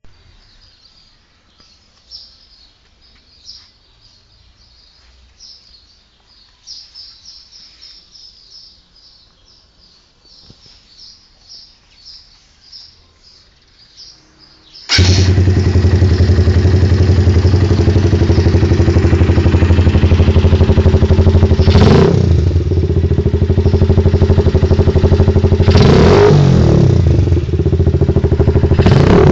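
Faint bird chirps, then about halfway through a Suzuki Yes 125 single-cylinder four-stroke motorcycle engine with a sports air filter comes in abruptly and idles loudly, revved up and back down briefly three times in the second half.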